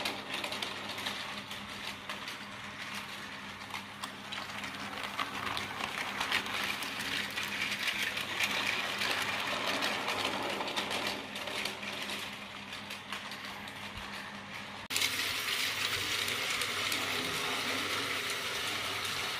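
Battery-powered Tomy toy trains running on plastic track: a steady small-motor whir with fine rattling clicks from the wheels and coaches. The sound changes abruptly about fifteen seconds in, turning brighter and hissier.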